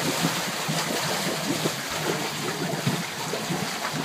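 Storm water rushing and gurgling steadily into a catch basin: roof runoff draining through a rain leader pipe just thawed from ice.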